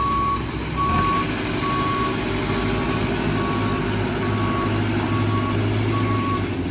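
JCB 3CX backhoe loader's reversing alarm beeping steadily, a single-pitch beep a little over once a second, over its diesel engine running: the machine is in reverse. The engine note changes about a second in.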